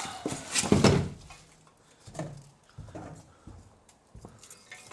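Junk being handled and moved: a loud scrape and clatter about a second in, then a few scattered knocks and scrapes.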